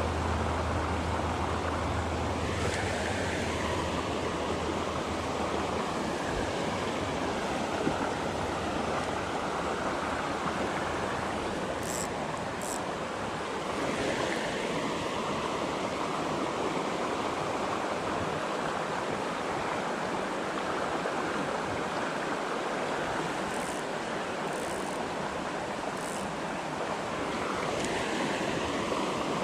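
Creek water rushing steadily over a rocky stream bed, with a few faint, short high-pitched sounds near the middle and toward the end.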